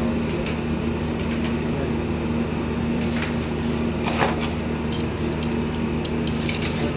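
Flaring tool being worked on a copper AC refrigerant pipe: scattered small metallic clicks and ticks, with a sharper click about four seconds in, over a steady low hum.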